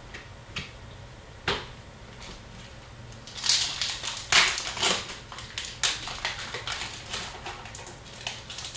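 Hockey card packs being handled and opened: crinkling pack wrappers and cards clicking and sliding against each other. A few light clicks at first, getting busier about three and a half seconds in.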